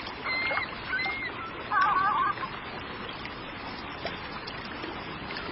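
Surf scoter calls: a few short, thin whistles in the first second, then a brief warbling call about two seconds in, over a steady wash of water noise.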